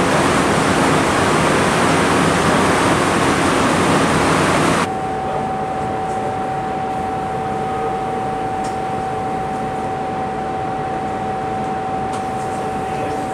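Steady, loud air-handling hiss, like clean-room ventilation fans, that cuts off abruptly about five seconds in. It gives way to a quieter background hum of running equipment with two steady tones held to the end and a few faint ticks.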